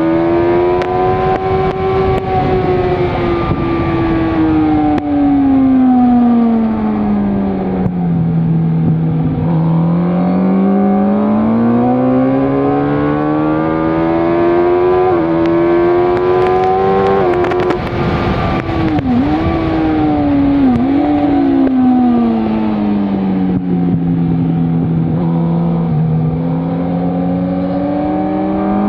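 Suzuki GSX-R sportbike's inline-four engine at track speed, its pitch climbing and falling repeatedly as it accelerates and slows for corners. There are a couple of quick dips in pitch about two-thirds of the way through as it shifts gears, over a steady rushing noise.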